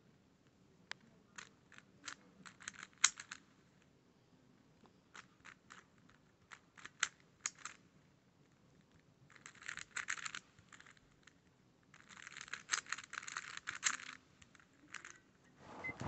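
A 3x3 puzzle cube being turned by hand: scattered plastic clicks of single layer turns, with two bursts of rapid clicking from fast turn sequences about ten and thirteen seconds in. Right at the end a thump as the solved cube is set down on the table.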